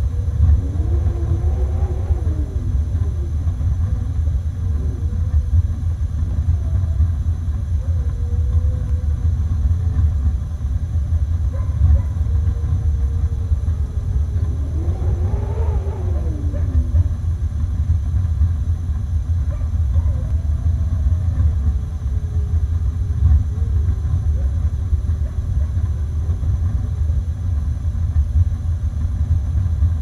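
Steady deep rumble of snowstorm wind, with wolves howling faintly at intervals over it. The loudest howl, several voices rising and then falling together, comes about halfway.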